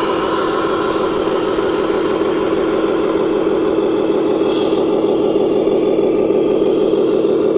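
Radio-controlled MAN three-axle tipper truck driving past with a steady, droning engine sound that holds one pitch.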